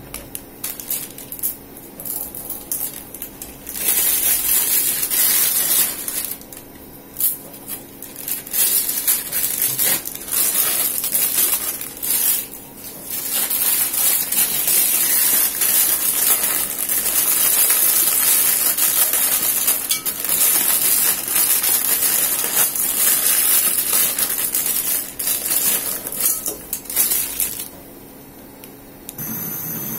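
Plastic Maggi noodle packets crinkling and dry instant noodles crunching and rattling as they are broken up and dropped into an aluminium pot of water. The crackling comes in stretches with short pauses and drops away near the end.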